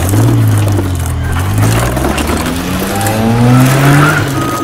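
Race-car engine sound, revving: its pitch sags at first, then climbs near the end before cutting off.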